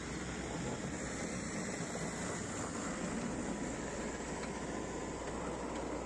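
Backhoe loader's diesel engine running steadily while its front bucket pushes a heap of snow.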